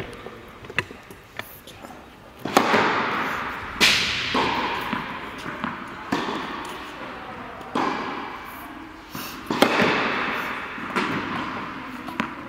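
Tennis ball bounced on a hard court and struck by a racket on serves, a string of sharp pops and smacks, each ringing on in a long echo around a large indoor tennis hall.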